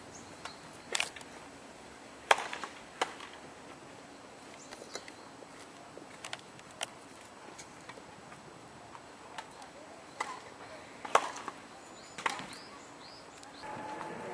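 Tennis rally: sharp pops of rackets striking the ball and the ball bouncing on the court, irregularly spaced a second or more apart, the loudest about two seconds in and again about eleven seconds in. A steady hum comes in near the end.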